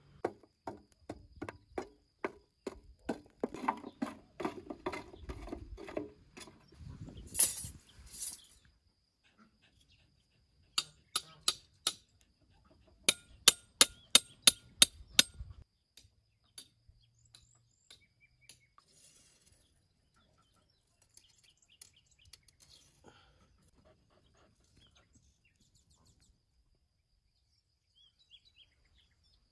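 Hand tool digging into sandy ground, a strike about every third of a second for some six seconds, then a short scraping hiss. Later come two quick runs of sharp metallic clinks from metal ring fittings being knocked or struck.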